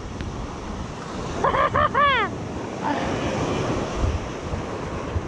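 Ocean surf washing up a beach, with wind buffeting the microphone. About a second and a half in, a man gives a few short, excited shouts.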